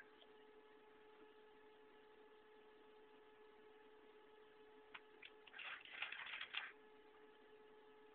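Faint steady electrical whine from the powered stepper-motor drives of a home-built CNC machine. About five seconds in it gives way to about a second and a half of clicking and rattling.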